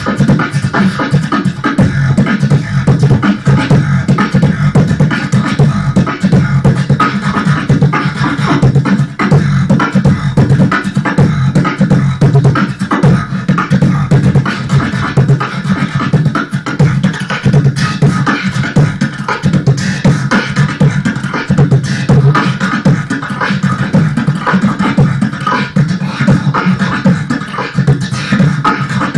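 Solo beatboxing into a handheld microphone cupped in the hand: a continuous, loud run of vocal drum hits over a sustained low bass tone.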